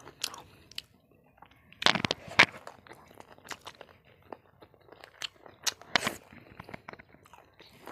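Close-up chewing and crunching of chewy fried pig's ear, a string of sharp crunches with the loudest about two seconds in and again near six seconds.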